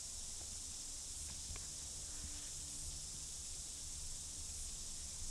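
Quiet, steady outdoor background: an even high hiss over a faint low rumble, with no distinct events.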